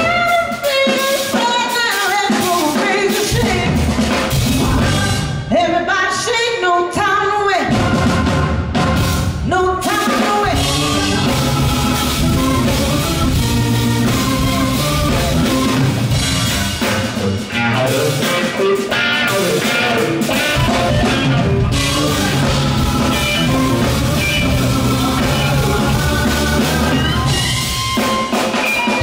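Live band playing a rock-soul song: electric guitar with drum kit, bass and organ. The bass and drums drop out briefly twice in the first several seconds, then the full band plays on.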